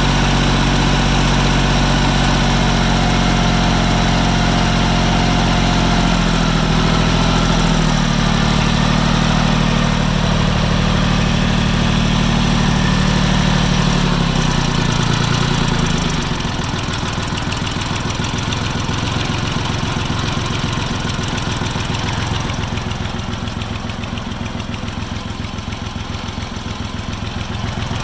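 Farm Pro 2425 tractor's diesel engine running at a fast idle, its speed shifting slightly, then slowing about fifteen seconds in to a slow idle with distinct firing pulses. The engine runs on a new, roughly timed injection pump and has not yet developed the knock it gets once warm.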